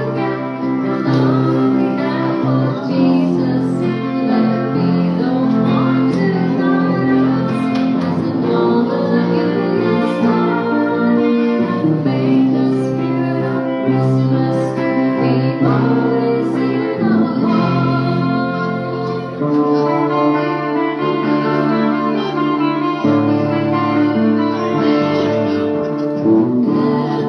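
Electric guitar playing a lead line over an acoustic guitar accompaniment, with some sliding, bent notes.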